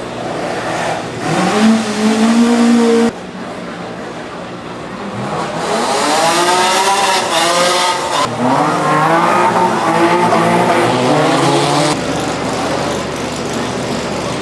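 Rally car engines pulling hard and shifting up through the gears, the pitch rising and dropping back with each change. A first short run breaks off abruptly about three seconds in. Then another car accelerates through several quick upshifts and stops suddenly near the end.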